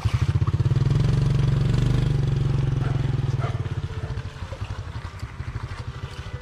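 A small engine running with a fast, steady putter, loudest in the first half and then fading away.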